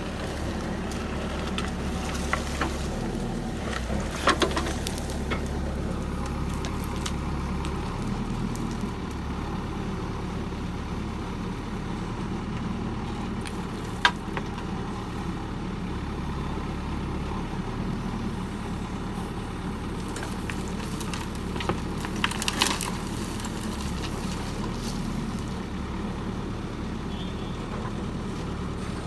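Heavy diesel machinery running steadily at a low rumble, with a few sharp clanks of metal over it, typical of a backhoe loader at work loading mud.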